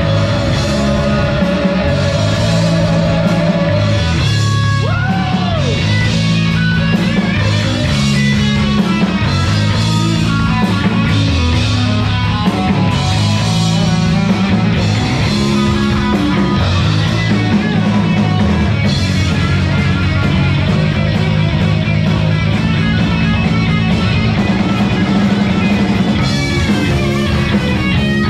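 Heavy metal band playing live and loud, with electric guitars, bass and drums, and a bent guitar note sliding up and down about five seconds in.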